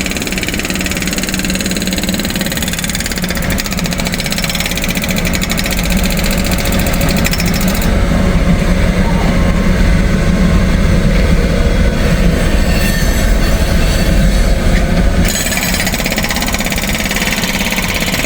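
Long freight train rolling past close by: a loud, continuous rumble with rapid rhythmic clatter from the wheels and cars, growing louder in the middle.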